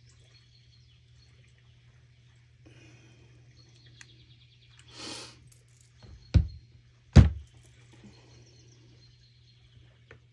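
A sleeping cat snoring faintly with a whistly sound, two breaths a few seconds apart, over a low steady hum. About six and seven seconds in come two sharp knocks a second apart, the loudest sounds, just after a short breathy rush.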